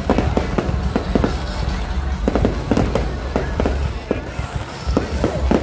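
Fireworks display going off, a dense irregular string of sharp bangs and crackles over a steady low rumble, with music playing underneath.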